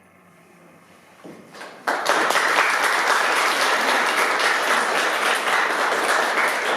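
Audience applauding: a few scattered claps about a second in, then full, steady applause from about two seconds in.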